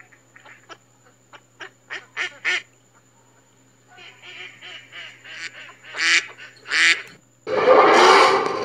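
Ducks quacking and honking in a string of short calls, two of them louder about six and seven seconds in. About seven and a half seconds in, a loud engine noise cuts in suddenly.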